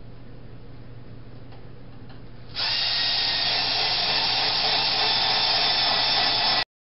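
Power drill running steadily, starting suddenly about two and a half seconds in and cutting off abruptly near the end.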